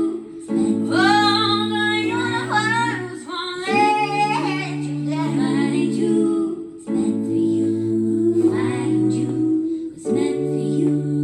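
Slow song: a woman's voice sings long held phrases over sustained chords, with the bass note changing every couple of seconds.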